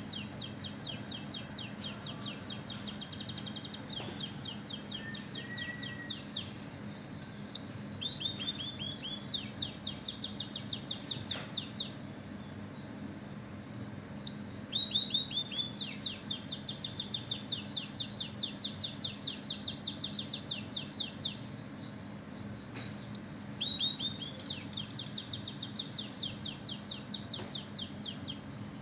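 Oriental magpie-robin singing canary-style song that it has learned: long, fast, high trills of repeated sweeping notes, about seven a second, in runs of a few seconds. Each run is set off by a short rising-and-falling note and a brief falling run.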